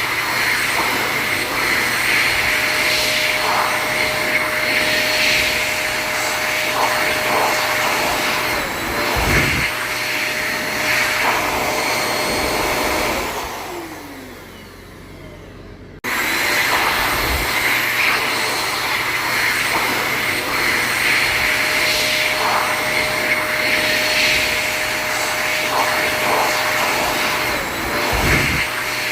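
Automatic electric hand dryer blowing, a steady hiss of air with a motor whine. About thirteen seconds in it winds down and fades, then about three seconds later starts again abruptly at full strength.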